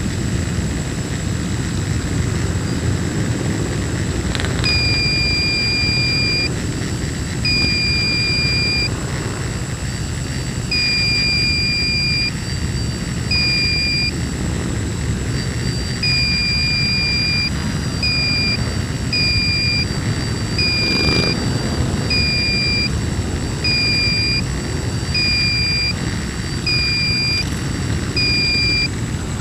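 A column of cruiser motorcycles riding past under a steady hum. From about five seconds in, a high electronic beep repeats over it: long beeps at first, then shorter ones about once a second.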